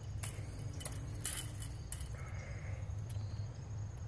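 A metal tape measure rattling and clicking as its blade is pulled out and held against a stacked woodpile, with a few sharp taps over a steady low hum.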